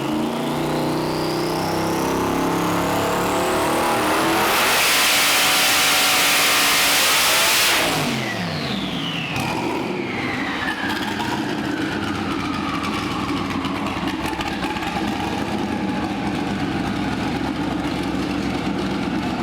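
Twin-turbo LS V8 making a full-throttle pull on a hub dyno at about 30 pounds of boost. A whine rises over the first four seconds, and the loudest stretch runs from about four and a half to eight seconds. Then the throttle closes and a falling whine trails off over several seconds, leaving a steady running noise.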